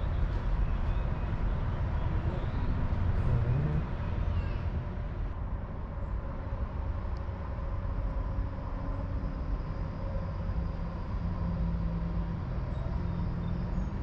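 Steady low rumbling outdoor background noise with a faint constant hum.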